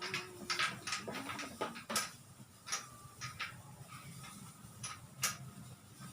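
A scattering of light clicks and knocks at uneven intervals, about a dozen in all, the sharpest about two seconds in and again near five seconds: small hard parts and packaging being handled.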